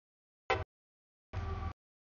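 CSX diesel freight locomotives passing through a grade crossing, heard only in short chopped fragments with dead silence between them as the audio drops out. A low engine rumble carries a few steady tones, in two bursts: a brief one about half a second in and a longer one near the middle.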